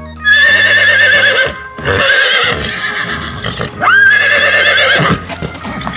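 Horses whinnying: about three long neighs one after another, each with a wavering, shaking pitch, the last starting with a sharp rising squeal.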